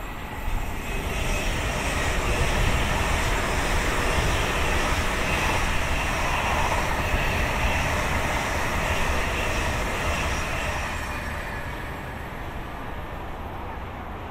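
Two coupled Jakarta–Bandung high-speed trainsets (KCIC400AF) passing at speed: a steady rushing rumble that swells over the first couple of seconds, holds, then fades away over the last few seconds as the train recedes.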